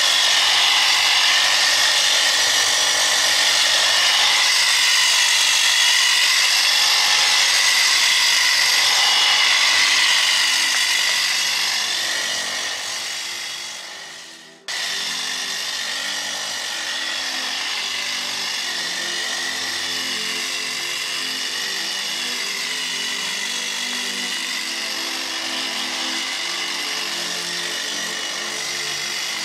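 Cordless pole hedge trimmer (Ego PPX1000) running, its blades cutting through a strawberry-tree hedge: a loud, high whine that wavers with the load. About halfway it fades and cuts off, then carries on at a lower level with background music under it.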